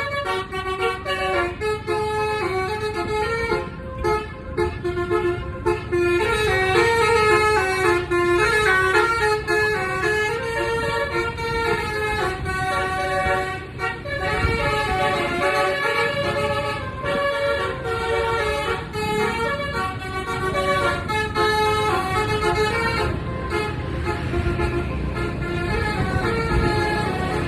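Basuri 'telolet' bus horn playing a running melody of stepping notes, over the low rumble of the bus's engine and the road.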